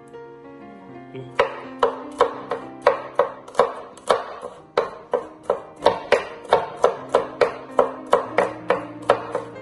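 Chef's knife chopping garlic cloves on a wooden cutting board: near-even chops about three a second, starting a little over a second in. Background music with plucked guitar plays underneath.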